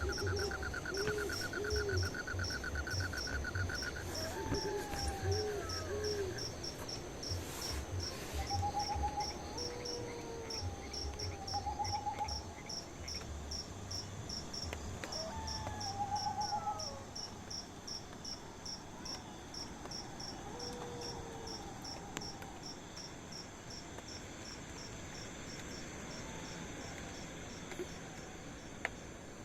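Night forest chorus: an insect chirping steadily in a high-pitched pulse about twice a second, with bird calls, short trills and soft hoots in the first half. A low rumble runs under it until about seventeen seconds in.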